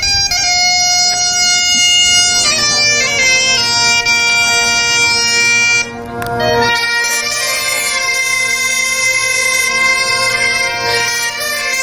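Breton bombardes and bagpipes playing a tune together over the bagpipes' steady drone, with a brief break about six seconds in.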